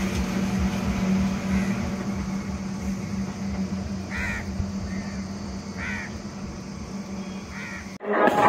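A crow cawing three times, a couple of seconds apart, over a steady low hum and low wind rumble on the microphone. Near the end it cuts suddenly to louder music.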